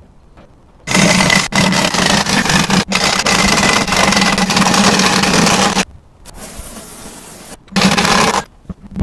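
Air impact wrench running in long bursts, undoing the wheel nuts on a truck's front axle hubs: a loud run from about a second in, broken off abruptly several times, then a shorter burst near the end.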